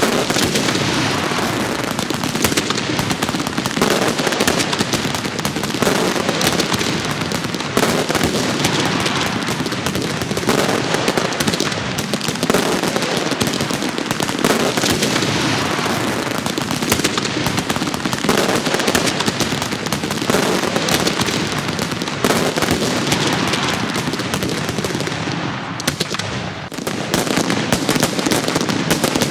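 Fireworks crackling and popping in a dense, continuous barrage of rapid small bangs. The barrage thins for a moment near the end, then picks up again.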